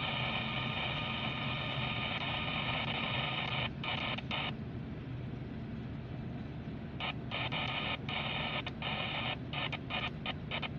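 Scanner radio giving off a harsh buzzing static made of many steady tones. It breaks up briefly a little before midway, drops out for a couple of seconds, then cuts in and out choppily near the end, over a low steady rumble.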